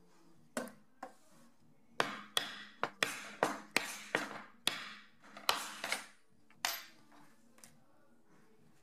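A hammer striking a steel rivet setter, setting a brass rivet through a leather strap on a small steel anvil block. About fifteen sharp metallic taps, quickest in the middle, stopping about two-thirds of the way through.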